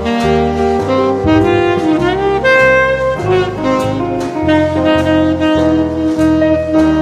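Instrumental jazz: a saxophone holds and slides between long melody notes over a stepping bass line, with drums and cymbals keeping time.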